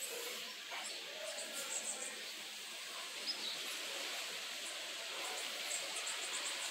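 Faint outdoor background: a steady hiss with a few short, high-pitched chirping trills, about two seconds in and again near the end.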